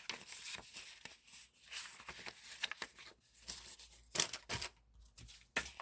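Sheets of decorative journaling paper and stickers being handled and leafed through by hand: irregular crisp rustles and crinkles, the loudest about four and five and a half seconds in.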